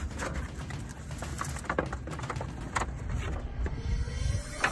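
Paper backing crackling as it is peeled off a SeaDek foam deck pad and the pad is pressed down by hand, in irregular short clicks over a steady low rumble.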